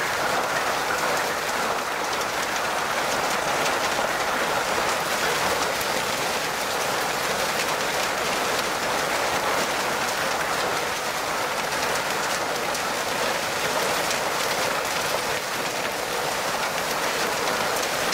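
Heavy hail with rain pelting a concrete patio and a hot tub: a loud, steady clatter of countless small impacts.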